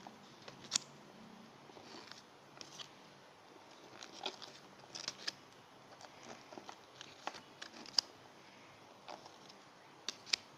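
Yu-Gi-Oh trading cards being handled in the hand, slid off a stack one after another, giving scattered soft clicks and short paper swishes at irregular intervals.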